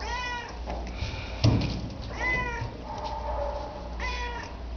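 Cat meowing three times, short arched high calls. A single sharp thump about a second and a half in is the loudest sound.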